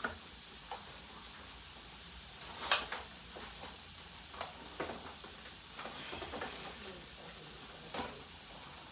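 Mixed vegetables sizzling steadily in a frying pan on a gas stove, with a few short clicks and crinkles from a disposable aluminium pan as pie crust is pressed into it. The sharpest click comes a little under three seconds in.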